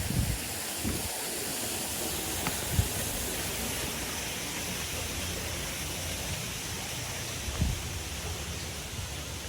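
Steady rushing of falling water from a waterfall, with a few soft low thumps.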